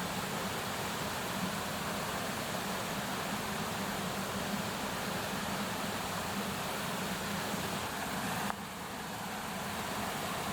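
Bonfire with raw sausages cooking over it: a steady hiss without separate pops. About eight and a half seconds in the sound drops suddenly and then builds back up.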